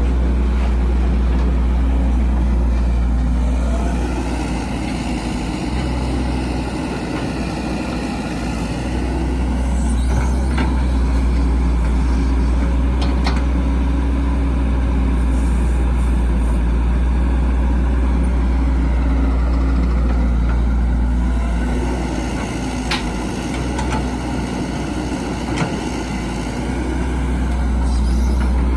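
Heavy diesel construction machinery running steadily with a deep engine drone. Twice, for several seconds each time, the engine note eases and a higher whine rises and falls over it, with a few sharp clanks in between.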